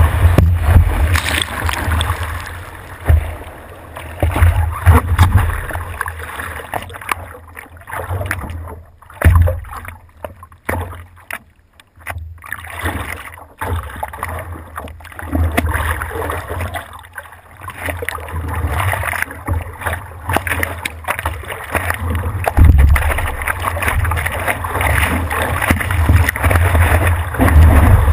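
Water rushing and spraying past a stand-up paddleboard riding a wave, with wind buffeting the board-mounted microphone. In the middle it drops to quieter, patchy water sounds as the board is paddled on calm water, then the rushing builds again near the end as it catches another wave.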